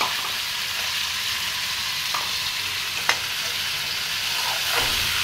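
Ground-lentil batter sizzling in hot masala in a kadhai as it is stirred with a steel spoon. A steady hiss, with a few sharp clinks of the spoon on the pan, the clearest about three seconds in.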